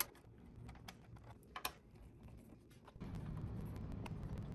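Light clicks and ticks of a small Torx screwdriver turning out screws from a sheet-metal stereo chassis, with loosened screws being handled. About three seconds in, a steady low rumble comes in underneath.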